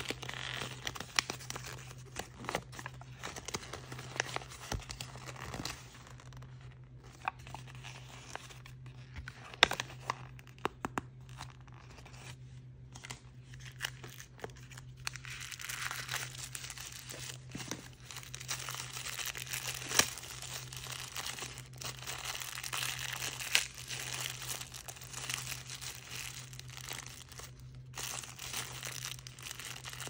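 Hands tearing open and crinkling blind-bag toy packaging, a continuous crackle with scattered sharp snaps.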